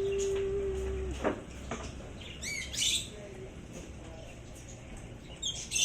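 Short, high, bird-like chirps with quick rises and falls in pitch, a cluster about two seconds in and another near the end, after a steady held tone lasting about a second at the start. The calls are presented as coming from a live fish.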